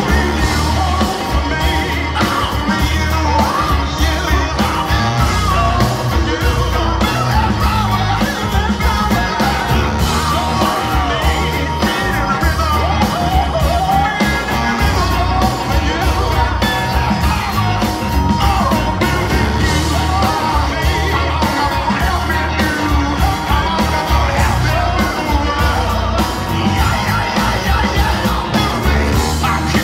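Live rock band playing with bass and drums, a male lead singer singing over it into the microphone.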